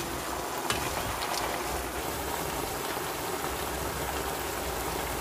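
Beef bulgogi simmering in its soy-based sauce in a pan: a steady sizzling, bubbling hiss with a few small pops near the start.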